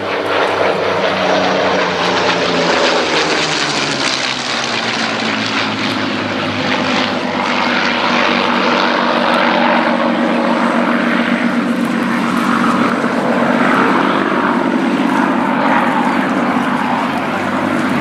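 Two Supermarine Spitfire Mk.IX fighters flying over together, their Rolls-Royce Merlin V12 piston engines running. The engine note drops in pitch a few seconds in as they go past, then holds steady.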